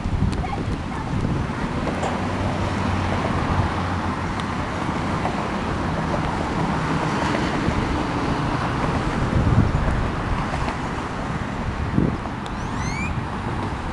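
Wind rumbling on the microphone with the muffled hoofbeats of a cantering pony on arena dirt, a steady noisy wash with a few scattered thuds.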